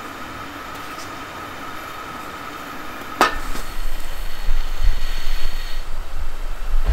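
Cast iron propane camp burner running under a kettle: an uneven low rumble with hiss from the flame, starting suddenly with a click about three seconds in. Before it, a steady hiss with a faint high tone.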